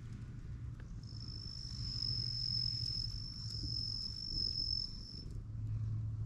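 An insect trilling on one high steady note, starting about a second in and stopping a second before the end, over a low steady hum.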